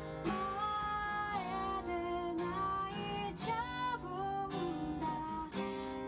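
Background music: a song with acoustic guitar and a singing voice, its melody moving continuously.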